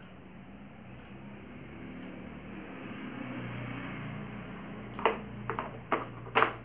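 A low steady hum, then four sharp clicks and knocks in the last two seconds, as of hands handling the scooter's plastic dashboard panel.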